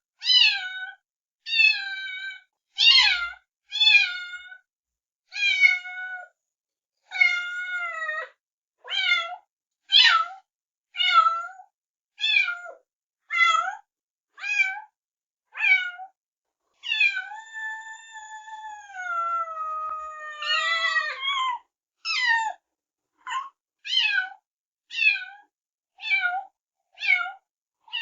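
Kittens meowing in short, high-pitched calls, about one a second, each falling in pitch. Around the middle comes one long drawn-out meow of about four seconds, with another kitten's calls overlapping it near its end.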